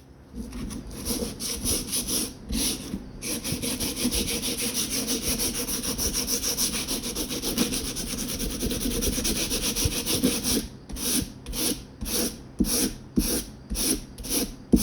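Coarse 60-grit sandpaper rubbed back and forth by hand over knife handle scales, roughing them up deeply for an epoxy bond. Separate strokes at first, then a long run of fast, short strokes, and near the end slower, distinct strokes, a little over two a second.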